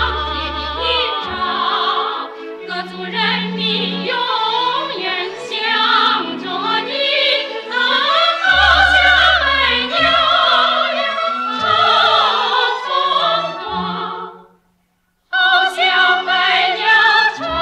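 Operatic singing with orchestral accompaniment, the voice wavering in a wide vibrato. About fourteen and a half seconds in the music fades to a second of silence, then starts again.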